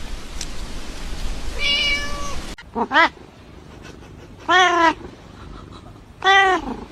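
Domestic cat meowing: one flat meow over a background hiss, then three meows about a second and a half apart, each rising and falling in pitch.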